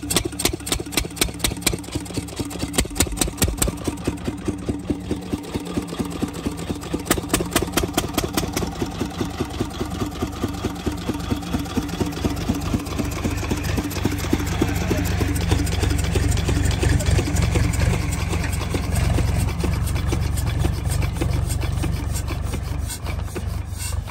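Single-cylinder stationary diesel water-pump engine running shortly after starting, with slow, distinct firing strokes about three a second. It picks up speed and gets louder about fourteen seconds in, the strokes running together.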